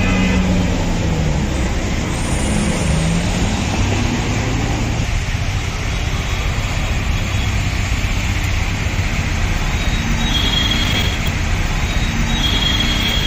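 Steady street traffic noise, with the hum of vehicle engines and tyres on the road; an engine note rises and falls in the first few seconds.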